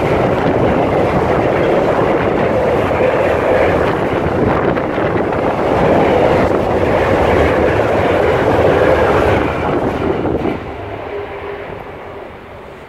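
Container wagons of an intermodal freight train rolling past with a loud, steady rumble and clatter of wheels on rail. The sound falls away sharply about ten seconds in as the end of the train goes by.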